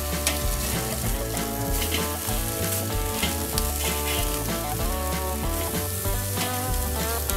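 Burger patties sizzling on the grate of a charcoal kettle grill while a metal spatula scrapes under them to flip them, a few short scrapes standing out. Background music with a steady bass line plays underneath.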